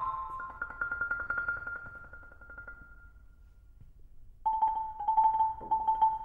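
Marimba played by three players at one instrument: a high note rapidly re-struck that fades away, a short near-quiet pause, then a new rapidly repeated note entering about four and a half seconds in, with a lower note joining near the end.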